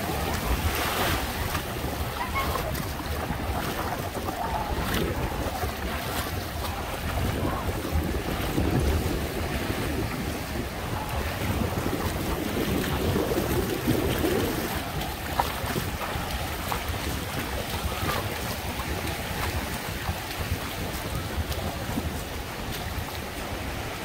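Small surf breaking and washing up a sandy beach in a steady wash, with wind rumbling on the microphone.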